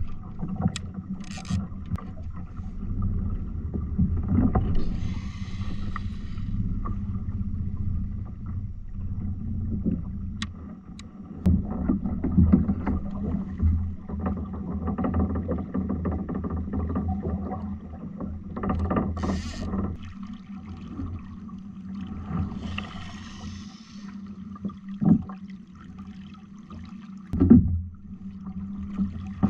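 Knocks, clicks and rustling as fishing rods and reels are handled on a sit-on-top fishing kayak, over a steady low hum, with a few short hissing bursts.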